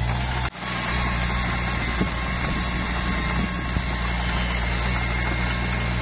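Komatsu D21P crawler bulldozer's diesel engine running steadily, with a faint steady high whine over it and a brief break in the sound about half a second in.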